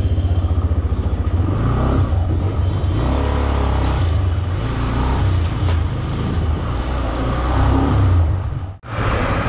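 Benelli TNT 150i's single-cylinder four-stroke engine running under way at low speed, its exhaust pulses quickening and slowing as the throttle is opened and eased. The sound cuts out for an instant near the end.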